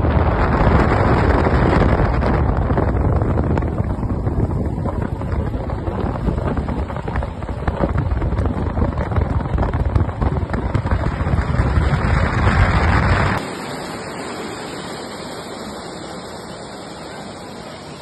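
Wind buffeting the microphone over the rumble of a moving vehicle, a loud low rushing noise. About thirteen seconds in it cuts off abruptly, leaving a quieter, steady hiss.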